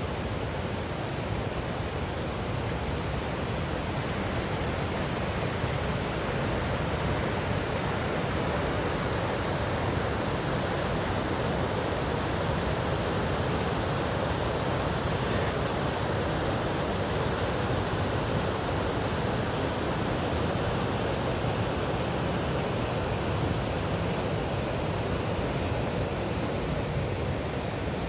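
The Tully River in flood, rushing over rocky rapids: a steady, even rush of white water.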